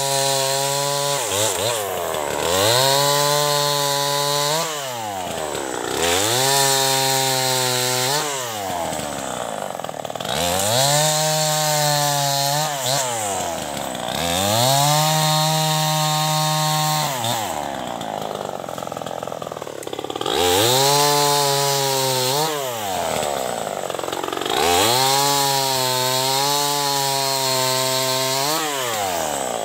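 Stihl 070 two-stroke chainsaw cutting dead wood: the engine is throttled up to full revs about seven times, holding each for one to three seconds, and drops back to idle between cuts, with a longer idle about two-thirds of the way through.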